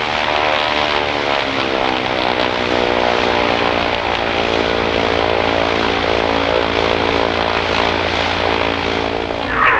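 Piaggio P.149D trainer's six-cylinder piston engine and propeller running after start-up. Its pitch rises over the first second and a half, then holds steady.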